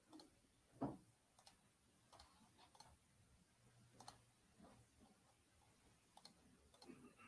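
Near silence with faint, scattered clicks from working a computer, and one slightly louder thump about a second in.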